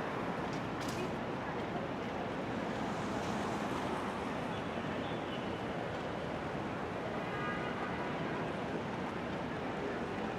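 Steady city street noise: a continuous rush of traffic.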